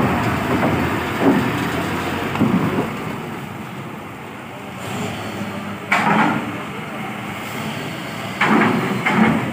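Heavy truck's engine running as it moves slowly over a ferry's steel loading ramp, with sudden clanks about six seconds in and twice near the end.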